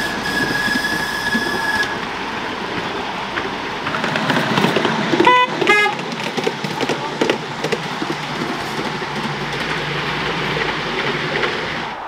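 Miniature railway train running on its track, with a continuous clatter and clicking of the wheels on the rails. A single steady whistle note sounds for about two seconds at the start. About five seconds in come two short toots at a lower pitch.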